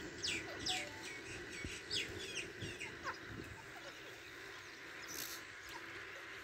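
Grey francolin chicks peeping: a quick run of short, high, downward-sliding peeps, about three a second, that thins out after about three seconds.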